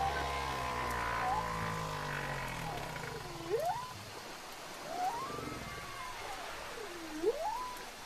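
Whale calls: a series of long sweeping moans, each sliding down and then rising sharply in pitch, repeating every couple of seconds. A low rumble sits under them in the first few seconds.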